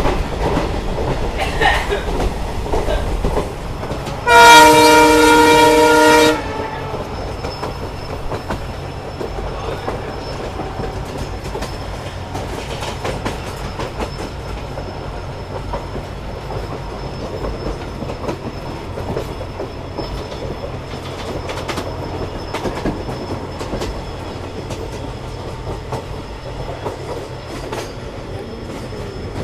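WDP4 diesel locomotive's multi-tone horn sounding one blast of about two seconds, a few seconds in. Under it runs the steady rumble and clickety-clack of the coach's wheels on the rails.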